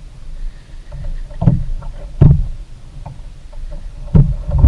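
Choppy water slapping against a kayak's hull in a few irregular thuds, over a low steady rumble.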